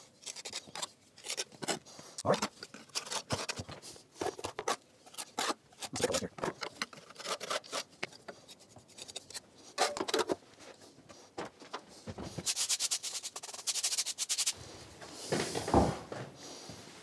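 A steel pointing trowel scraping mortar off a hawk and pressing it into the joints of a brick wall: irregular short scrapes and taps. Near the end there is a quick run of fine, rapid scratching.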